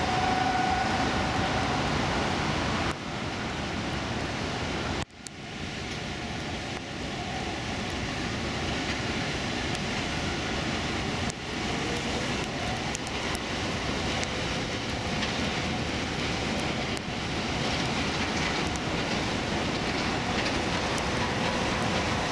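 Steady rumble of distant highway traffic and container-port activity in the rain. A short sudden dip comes about five seconds in.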